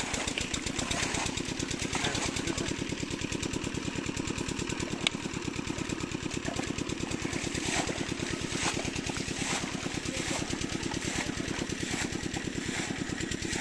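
A small engine running steadily with a fast, even pulsing, and a single sharp click about five seconds in.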